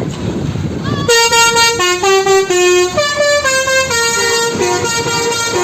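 Bus 'telolet' multi-tone musical horn playing a tune of short held notes that step up and down in pitch, starting about a second in.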